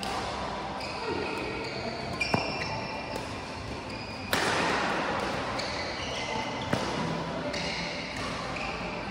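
Badminton doubles play: athletic shoes squeak on the court floor, broken by a few sharp smacks of rackets hitting the shuttlecock.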